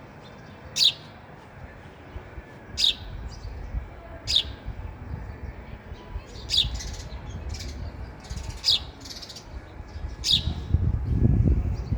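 House sparrows chirping: single short, sharp chirps repeated about every one to two seconds. A low rumble swells under them near the end.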